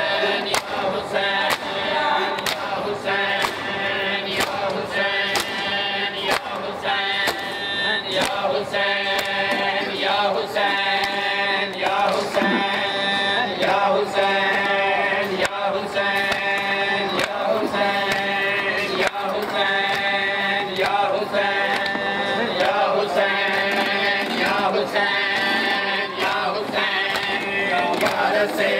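A crowd of men chanting a Shia mourning chant in unison, in short repeated phrases, with rhythmic slaps of hands on chests (matam) keeping the beat.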